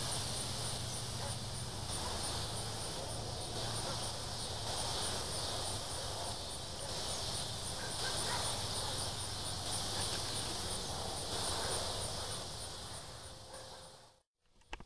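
Neighborhood dogs barking, set off by a predator whistle call, over a steady insect chorus with a high chirp repeating a few times a second. The sound cuts out shortly before the end.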